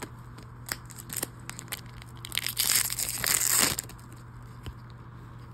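A foil trading-card booster pack wrapper crinkling and being torn open, a burst of crackling a little over two seconds in that lasts about a second and a half, after a few light clicks of cards being handled.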